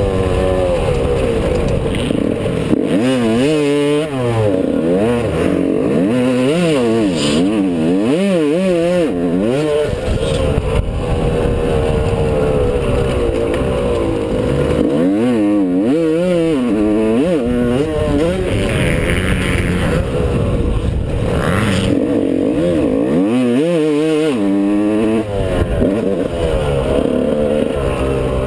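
Yamaha YZ125 two-stroke single-cylinder motocross engine heard from on board while riding a dirt track. It revs up and falls back again and again as the throttle is worked, with short drops in loudness around four seconds in and near the end.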